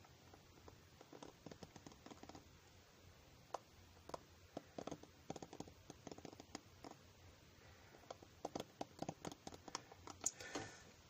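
Faint, irregular soft taps and scratches close to a microphone, ASMR-style, with a louder cluster of clicks about ten seconds in.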